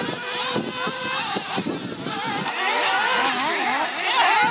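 Several radio-controlled 1/8-scale off-road buggies' small nitro engines buzzing at a high pitch, overlapping and rising and falling as they rev and lift through the corners, growing louder in the second half.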